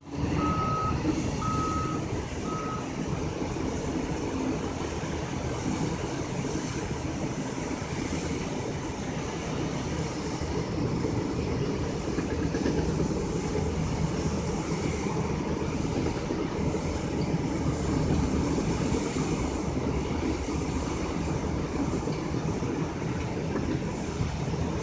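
Heavy earthmoving machine's engine running steadily, with three short reversing-alarm beeps in the first few seconds.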